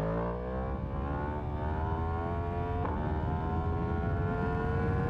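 Yamaha MT-10's crossplane inline-four engine accelerating hard, its pitch climbing steadily as the revs rise, over a low rumble of wind noise on the helmet-mounted camera's microphone.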